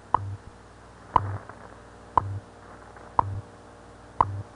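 NBS shortwave time-signal broadcast (WWV/WWVH) on 10 MHz: a short tick every second, each followed by a brief low hum of the 100 Hz time code, over faint shortwave hiss.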